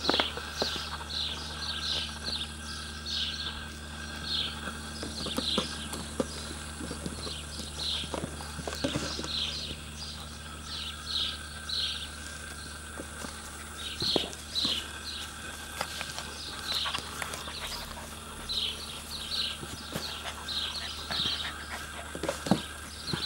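A puppy chewing and nosing an empty plastic water bottle on grass: irregular crinkles and crackles of the thin plastic, with a few hollow knocks as the bottle is pushed about.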